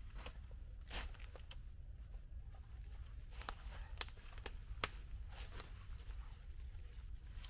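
Sticks and brush snapping and crackling as they are handled, about ten sharp irregular cracks over a steady low rumble.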